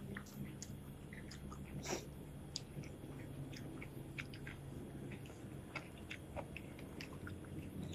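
Close-up chewing and crunching of crispy fried food, with scattered short crunches and small clicks. A low steady hum sits underneath and fades out after about five seconds.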